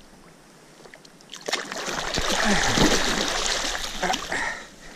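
Hard, churning splashes in shallow water as a large wels catfish thrashes while being grabbed by the mouth, starting about a second and a half in and lasting some three seconds.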